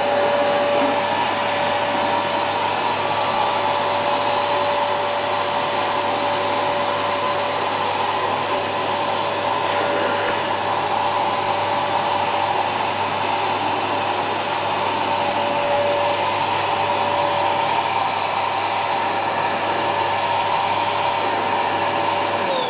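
Household vacuum cleaner motor running steadily with a constant whine, then switched off near the end, its whine falling as the motor spins down.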